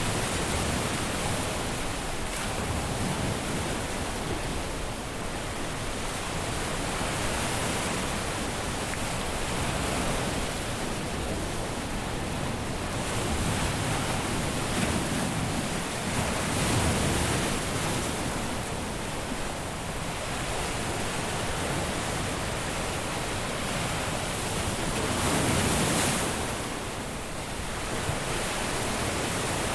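Caribbean surf breaking and washing up a beach: a continuous rush of wave noise that swells every few seconds as waves break, with no pauses.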